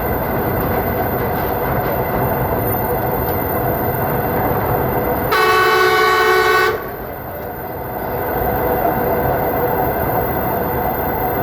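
Train running with a steady rumble, and one train horn blast of about a second and a half a little past the middle.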